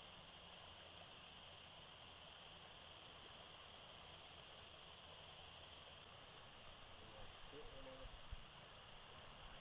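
Steady, high-pitched chorus of insects, an unbroken shrill drone in several pitch bands.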